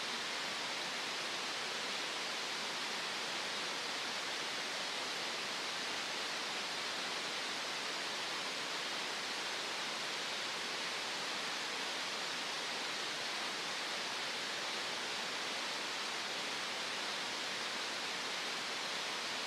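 Synthetic green noise: a steady, unchanging hiss with no events in it, strongest in the upper-middle range.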